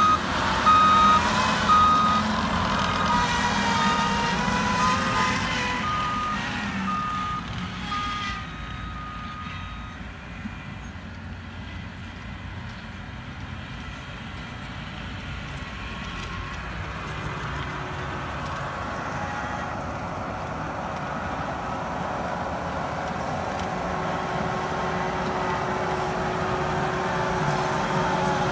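Skid steer loader working a dozer blade, its engine running under load while its backup alarm beeps about once a second for the first ten seconds. The engine sound then drops away and builds again toward the end.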